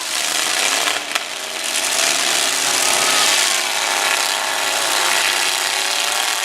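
Demolition derby trucks' engines running hard, a loud, dense, raspy noise with pitch that wavers as they rev, and a sharp knock about a second in.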